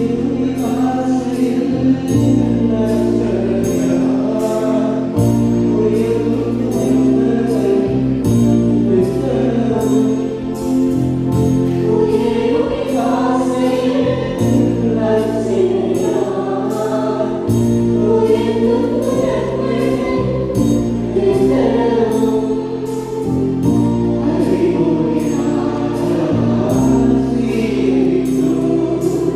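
A choir singing Christian music over held instrumental chords, with a steady beat ticking throughout.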